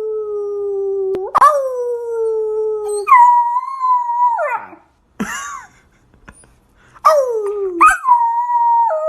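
A dog howling: a string of long, drawn-out howls, each holding a steady pitch before dropping off, with a short yelp and a pause around the middle and two more howls near the end.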